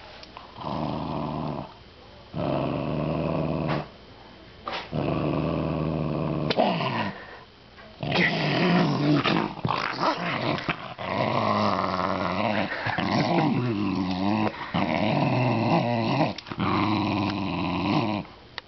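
Small dog play-growling in a string of growls, each one to two seconds long with short breaks, while tugging on a rope toy held by a person's hand. The later growls rise and fall in pitch.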